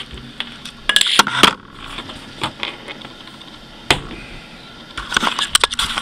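Handling noises from a laptop being turned upside down on a wooden desk: a cluster of knocks and clicks about a second in, a single sharp click near four seconds, and more clicks near the end.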